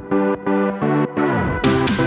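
Background music: a repeating run of pitched notes in a steady rhythm, with a fuller, brighter beat coming in about one and a half seconds in.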